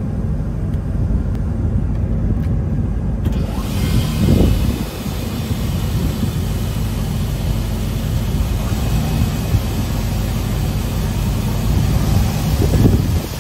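Weinig Hydromat 22 AL four-sided planer running, a steady low machine drone. About three seconds in, a broad hiss joins it, and there are two brief swells, one a little later and one near the end.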